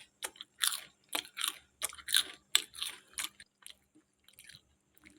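Crispy fried potato roll chips being bitten and chewed: a quick run of crisp crunches, about two or three a second, that tails off to faint ones after about three and a half seconds.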